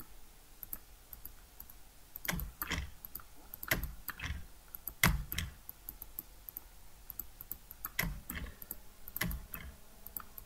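Computer mouse clicking: about ten sharp clicks, mostly in pairs, spread over the last two-thirds, with faint ticking between. Each click sets a point of a polygonal lasso selection.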